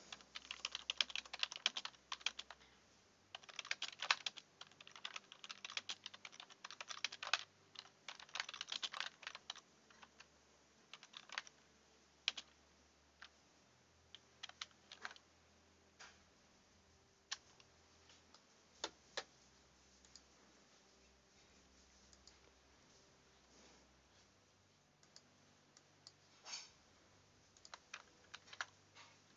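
Computer keyboard keys clicking, in quick dense runs for about the first ten seconds, then sparse single clicks.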